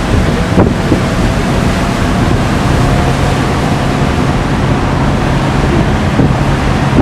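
Loud, steady rushing wind noise on the microphone over a low, even hum.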